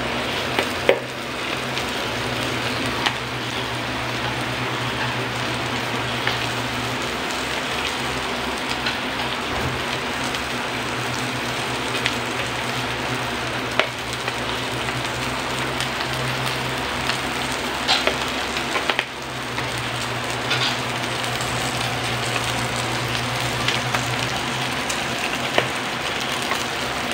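Whole fish sizzling steadily in oil on the hot ridged plate of an electric griller, with a few short clicks scattered through.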